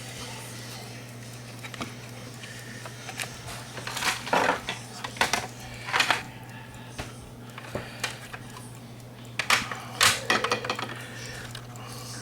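Irregular clicks and light knocks of small hard parts being handled, as the plastic clock case and its circuit parts are fitted back together. A steady low hum runs underneath.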